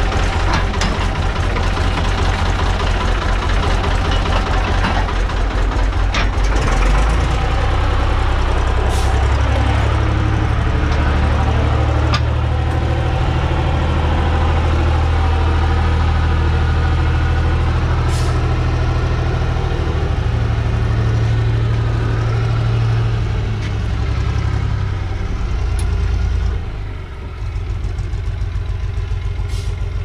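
Diesel tractor engine idling with an even pulsing, then running at higher revs from about seven seconds in and easing back near the end.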